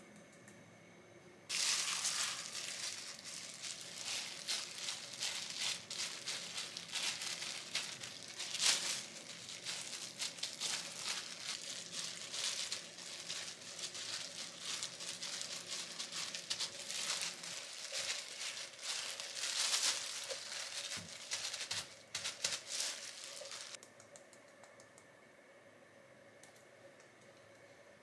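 Disposable plastic gloves crinkling and rustling as hands press a meat filling onto shiitake mushroom caps. The crinkling starts a second or two in and stops a few seconds before the end.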